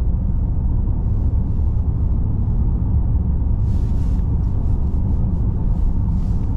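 Steady low rumble of road and engine noise inside a moving car's cabin, with a few faint brief hisses from about four seconds in.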